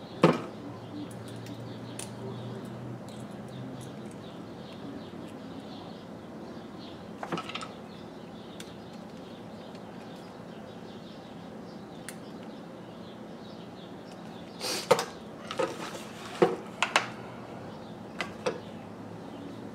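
Small sharp clicks and taps of a screwdriver and plastic plug parts being handled while a plug is wired onto a cord: one just after the start, another about halfway, then several close together near the end, over a steady background hum.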